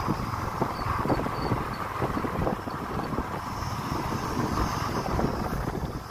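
Motorcycle riding along with wind buffeting the helmet-mounted microphone, an uneven low rumble over the engine and road noise.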